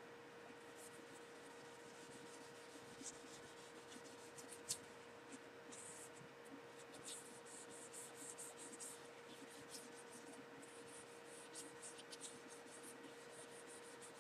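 Faint, light rubbing strokes of an applicator wiping wood finish onto a wooden knife handle, with a couple of small clicks and a faint steady hum underneath.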